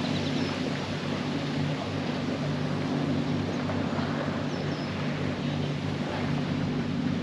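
Motorboat engine running steadily in the channel, a low, even drone.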